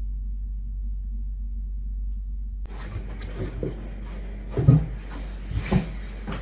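A low muffled hum, then from about a third of the way in, handling noises at a desk: things being moved about and set down, with a few sharp knocks and thumps, the loudest two in the second half.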